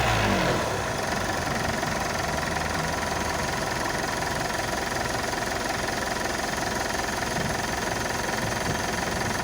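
Car engine dropping back to idle as the throttle is released, falling in pitch over the first half-second, then idling steadily.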